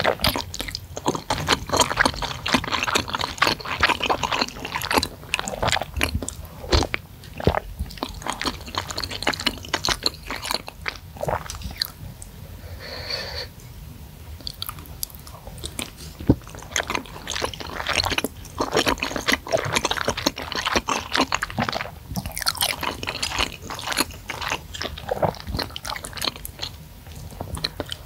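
Close-miked chewing of spicy seblak with noodles and meatballs: wet, irregular mouth clicks and crackle, with a quieter stretch about halfway through.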